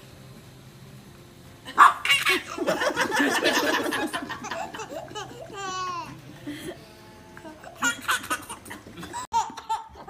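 A baby laughing hard: a run of belly laughs that breaks out about two seconds in, with a high squeal partway through, then tails off into softer laughs.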